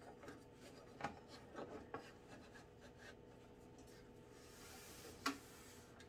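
Faint handling noise of a diesel heater's plastic fuel tank and frame being moved on carpet: light rubbing and a few small knocks, with one sharper knock near the end.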